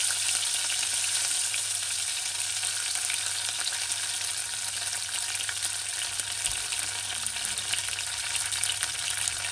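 Curry leaves and cinnamon sizzling in hot oil in a saucepan with mustard seeds and urad dal: a steady frying sizzle with faint crackles that eases off slightly as it goes on.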